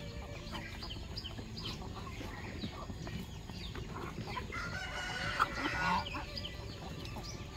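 A flock of chickens calling while feeding: clucking and many short peeps throughout, with a louder, longer call about five seconds in.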